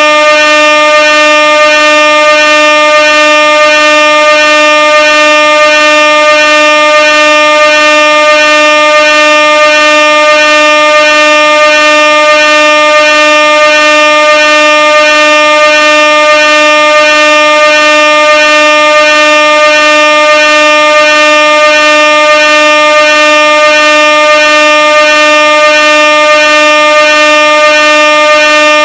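Air horn sounding one loud, continuous blast: a single steady tone held without a break, with a slight regular pulse in it.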